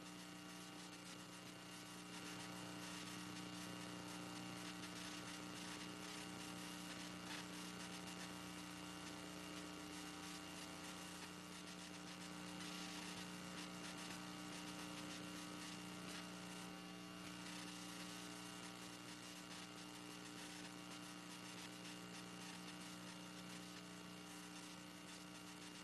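Faint, steady electrical mains hum with a buzz of many evenly spaced tones over a light hiss.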